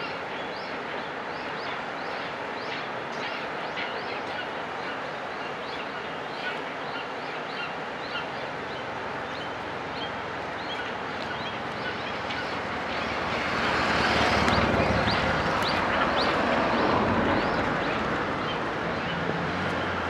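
Small birds chirping repeatedly, short high notes about one to two a second, over a steady outdoor hiss. A broad rushing noise swells up about two-thirds of the way through and eases off near the end.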